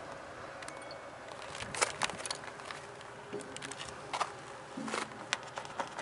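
Quiet outdoor background noise with a scattered handful of short, light clicks and taps.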